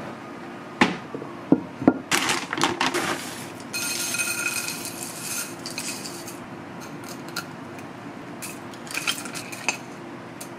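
Kitchen dishes and utensils clinking and clattering. A few sharp knocks come first, then a quick run of clatter, then a brief scraping, ringing rush, with a few more clinks near the end.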